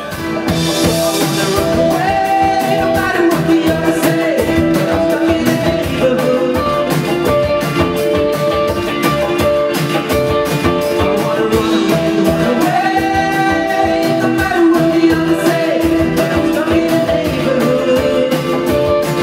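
Indie rock band playing: guitars with sung vocals over a steady beat.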